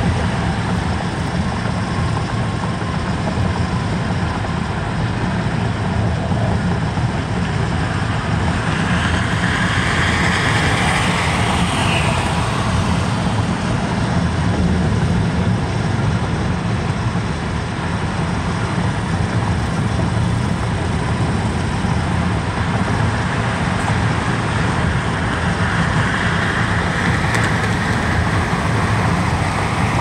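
Steady road and tyre noise heard inside a car cabin at freeway speed, a continuous low rumble under a hiss. The hiss swells and fades briefly about ten seconds in and again near the end.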